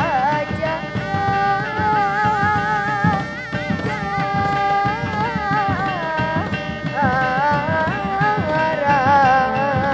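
Sundanese reog dogdog ensemble playing: hand-beaten dogdog drums in a busy rhythm under a held, wavering melody line with trills and bends.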